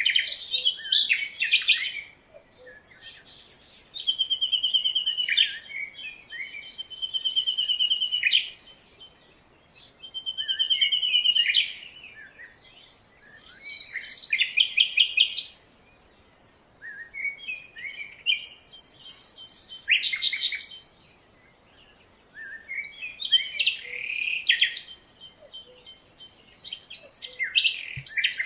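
Birds singing in bouts of a second or two with short pauses: held whistled notes, rapid chirping phrases and a high trill.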